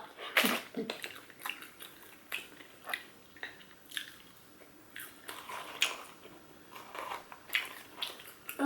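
Close-up chewing and biting of McDonald's food: irregular wet mouth clicks, smacks and soft crunches.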